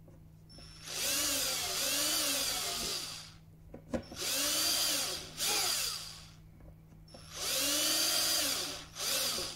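Cordless drill with a small bit boring shallow pilot holes for hinge screws in wood: three bursts of about two seconds each and a short one near the end. In each burst the motor whine rises in pitch as the trigger is squeezed and falls as it is let off.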